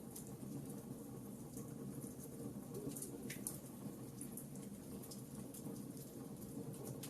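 Fireplace fire crackling: a steady low hiss of the flames with many small scattered pops and snaps.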